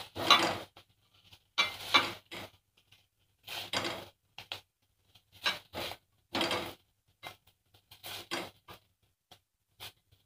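A spatula scraping crumbly paneer mixture out of a nonstick pan and into glass bowls, in short strokes every second or two, with light knocks and clicks of the pan and bowls being handled.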